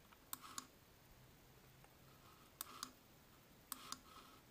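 Computer mouse buttons clicking faintly: three pairs of quick clicks, spaced over a few seconds.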